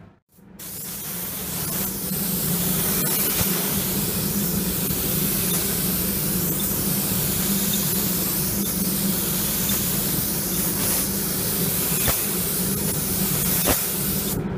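Automotive paint spray gun spraying: one long, continuous hiss that starts just after a brief gap at the very start, over a steady low hum.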